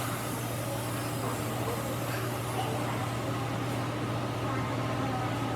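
Steady low hum of an electric machine motor running, with a faint even hiss.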